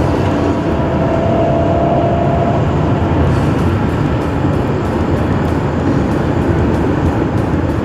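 Loud, steady rumbling noise of a vehicle in motion, with a faint held tone over the first couple of seconds.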